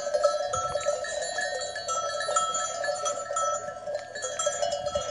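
Neck bells on a flock of goats ringing continually, many bells of different pitches overlapping as the animals move and graze.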